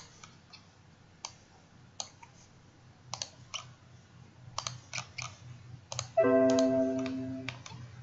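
Irregular clicking of a computer mouse and keyboard. About six seconds in comes a short electronic chime, several notes sounding together, which is the loudest sound here and fades away over about a second and a half.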